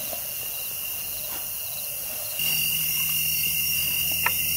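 A steady chorus of night insects, crickets trilling in high, even bands. A little past halfway it jumps louder, with a low steady hum added underneath, and a single short click comes near the end.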